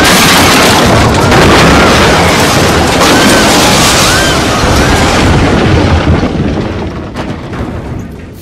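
A dramatised explosion and crash from a TV drama: a long, loud rumbling blast of noise with repeated short rising-and-falling cries over it. The noise dies away in broken crackles over the last couple of seconds.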